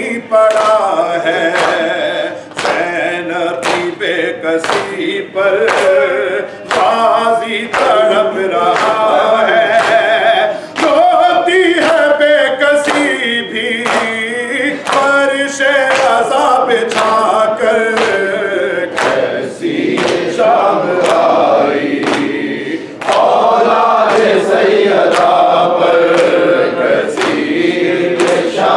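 Urdu noha sung by a male reciter, with a group of men's voices chanting along. Underneath runs a steady beat of open-hand strikes on the chest (matam), a little more than one a second.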